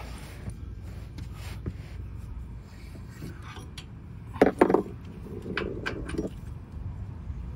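Clinks and knocks of metal hardware worked by hand as a pin is pulled from the steering box's bottom mounting hole and a bolt is fitted. Two sharp metal knocks come about halfway through, followed by a brief scraping rub.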